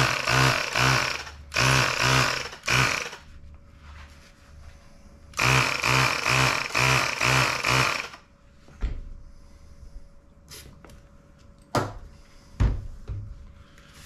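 A battery-powered handheld tyre inflator running in short bursts, pumping a little air into a punctured bicycle inner tube: three bursts in the first three seconds, then one longer run of about two and a half seconds, and it stops. A few sharp knocks follow near the end.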